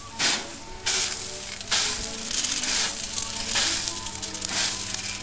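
Water squirted from a hand spray bottle onto the hot steel drum of freshly roasted coffee beans, a series of short hissing sprays roughly once a second, sizzling as it hits the metal. The spraying quenches the beans to stop the roast.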